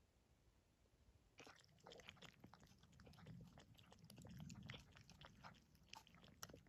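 A dog chewing and crunching, a quick irregular run of faint crunches that starts about a second and a half in.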